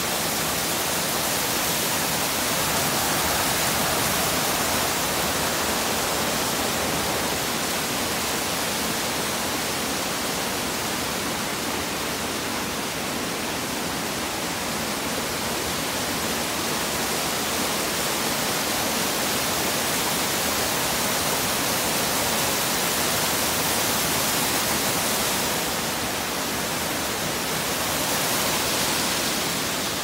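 Small mountain waterfall rushing steadily over rocks, a constant hiss of falling water.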